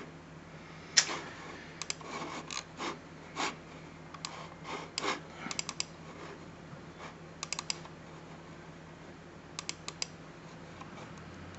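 Computer mouse buttons clicking, some single clicks and some quick double-clicks in small clusters, over a faint steady hum.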